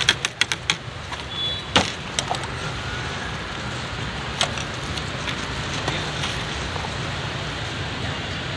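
Street traffic rumbling steadily, with several sharp metallic clinks and knocks of a ladle and utensils against a steel soup pot and bowls in the first two seconds.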